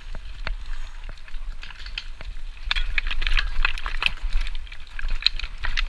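Mountain bike rattling over a rough, stony trail: a rapid, irregular clatter of clicks and knocks from the tyres, chain and frame over a low rumble. The clatter grows denser and louder about three seconds in, where the trail turns rocky.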